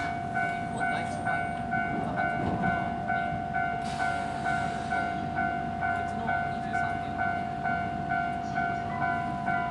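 Japanese railway level-crossing warning bell ringing in a steady rhythm of about three strikes a second, over the low running noise of an electric commuter train. A second, higher bell tone joins near the end.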